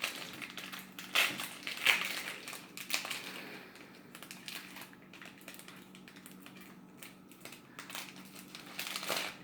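Foil Pokémon booster pack being torn open and crinkled, with the loudest rips about one and two seconds in, then softer rustling of the wrapper and cards.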